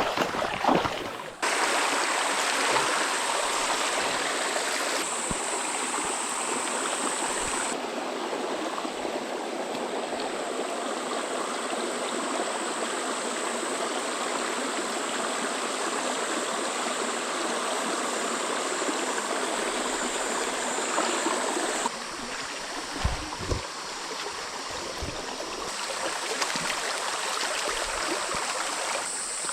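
Small freshwater creek running, a steady rush of flowing water.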